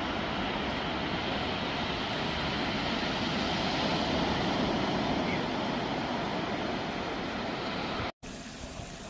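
Steady rushing outdoor noise with no distinct calls or knocks. It cuts out abruptly about eight seconds in and gives way to a quieter, steadier hiss.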